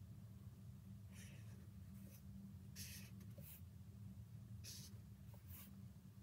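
Marker pen tip scratching across paper in about six short strokes as diagonal lines are drawn, over a faint steady low hum.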